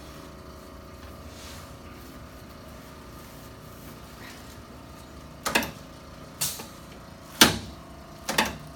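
Low room hum, then from about halfway a series of about five sharp clunks and knocks, the loudest near the end, from the chiropractic treatment table as the patient turns over onto her back on it.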